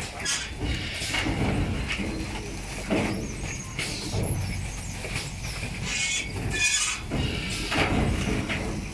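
JBJ-7 quilt blanket roll packing machine running: a steady low motor hum under irregular rustling and clattering as quilts are fed in and rolled.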